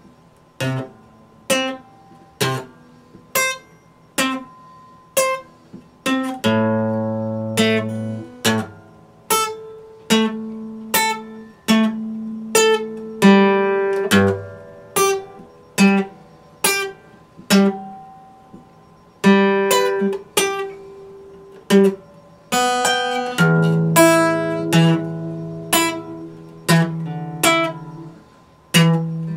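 Epiphone acoustic guitar played solo, with notes and chords picked one at a time, each left to ring and fade. The pace is slow at first and the notes come closer together later on.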